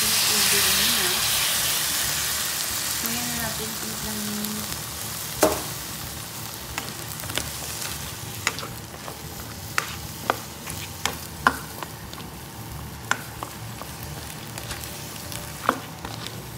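Water poured into a hot pan of sautéed squash and shrimp hisses and sizzles loudly, the sizzle dying down over the next few seconds, added to keep the squash from burning. A spatula then stirs the pan, with scattered sharp clicks and taps against it over the quieter sizzle.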